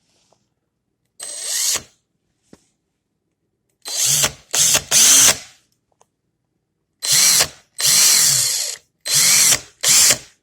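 Cordless drill run free in about seven short trigger pulls, each a second or less long. In each pull the motor whines up to speed and winds down again, with silent gaps between the pulls.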